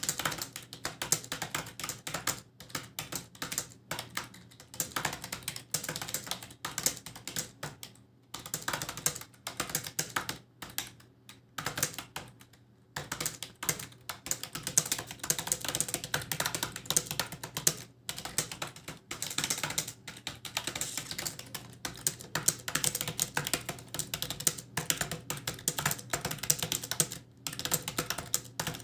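Fast, continuous typing on a computer keyboard: a dense stream of key clicks with a few brief pauses.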